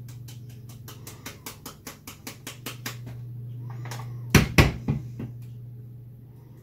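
Light rapid tapping, about four or five taps a second, as a spice grinder is knocked against a plastic funnel to shake ground celery powder into a spice jar, then two or three loud knocks about four and a half seconds in. A steady low hum sits underneath.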